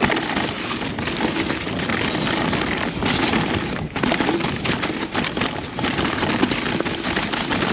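Mountain bike descending a wet, rocky trail: a steady rush of wind on the camera microphone, with the tyres and bike knocking and rattling over rocks.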